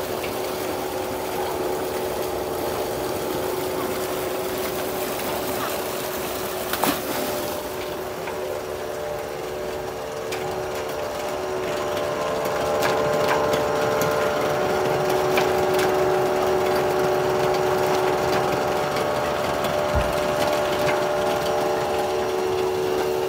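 Belt-driven tube well pump running, a steady mechanical hum with a few fixed tones that grows louder about halfway through. A single sharp click about seven seconds in.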